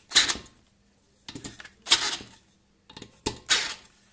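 Hard plastic and metal parts of a stand mixer's motor housing being handled and fitted, with its drive belt and gear. There are three short clattering bursts about a second and a half apart.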